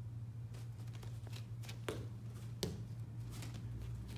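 Bare feet slapping and scuffing on foam martial-arts mats as kids shift and react in fighting stance: a handful of short, sharp slaps. A steady low room hum runs under them.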